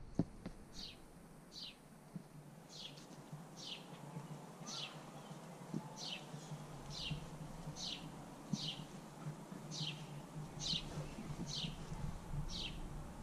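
A bird calling: a short, high note sliding downward, repeated steadily about once a second, heard faintly over a low background hum.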